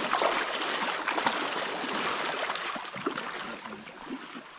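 River water swishing and sloshing around legs wading through a shallow river, dying down near the end as the wading stops.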